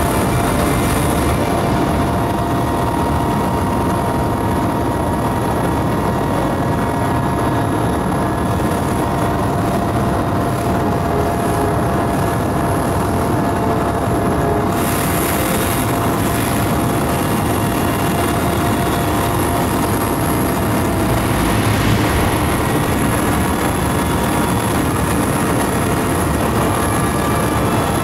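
Steady engine drone of an aircraft heard from inside the cabin, with fixed whining tones over a dense rush of noise; a brighter hiss joins about halfway through.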